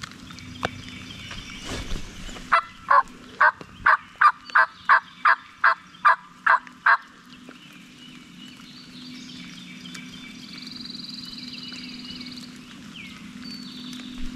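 A hunter's turkey call yelping a run of about a dozen evenly spaced yelps, roughly three a second, imitating a hen to draw a gobbler in. Faint songbirds call afterward.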